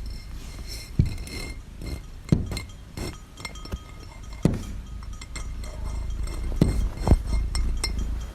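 Scattered clinks and knocks, about six of them at irregular intervals, each with a brief ringing tone, over a steady low rumble.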